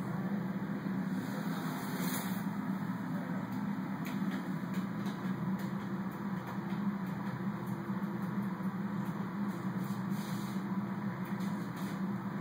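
Steady low room hum, with a few faint clicks or taps.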